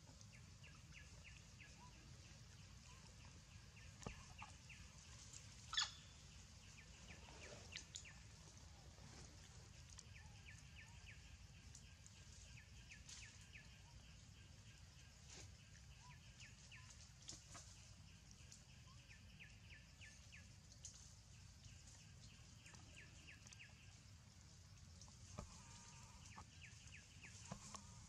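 Quiet outdoor ambience: a steady low rumble with recurring rows of faint rapid chirps, and a few brief sharp sounds, the loudest about six seconds in.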